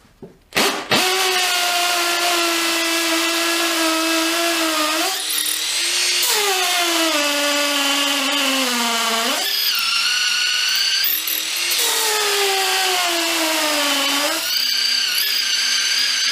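Makita DTP141 cordless 4-mode impact driver running in hammer-drill mode, drilling into brick with a masonry bit. A steady motor whine starts about a second in. It sags in pitch three times as the bit loads up and picks back up each time, running until near the end.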